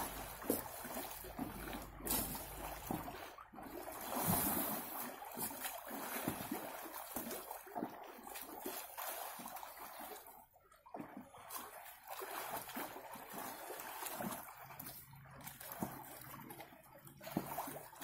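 Water splashing and sloshing in an above-ground frame pool as a swimmer moves through it and churns up waves, with irregular splashes.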